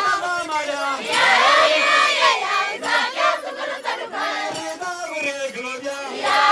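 A crowd singing and cheering with many voices at once, with high wavering cries among them.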